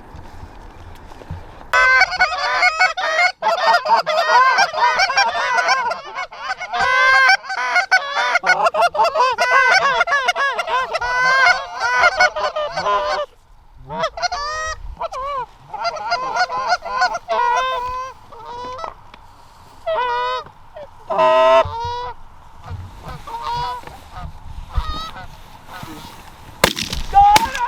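Canada geese honking, many calls overlapping in a dense chorus that breaks off about halfway through, followed by scattered single honks.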